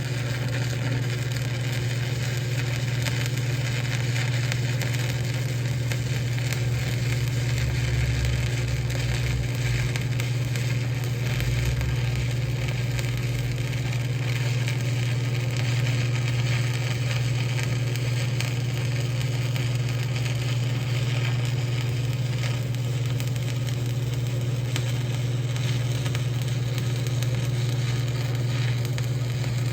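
Stick welding arc from a 3/32" 7018 electrode on 1/4" steel plate, run off a square-wave TIG welder with a foot pedal, crackling and sizzling steadily over a constant low hum. The arc, started with the machine's high-frequency start, holds through the whole bead.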